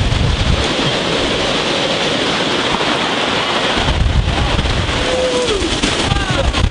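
Hurricane wind and heavy rain lashing down in a steady rush, with strong gusts hitting the microphone as deep rumbles at the start and again about four seconds in.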